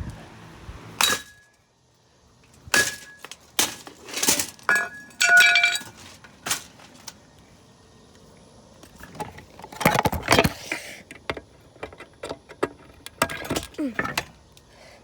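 Hammer blows smashing a Lasko box fan: a run of sharp cracks and clinks as it breaks, some hits leaving a short metallic ring. The blows come in two bursts with a lull of a couple of seconds in the middle.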